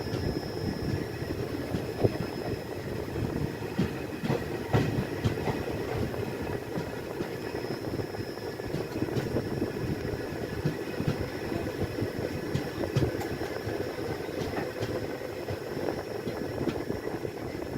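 Passenger train running along the track: a steady rumble of wheels on rails with scattered clicks and a faint thin high tone above it.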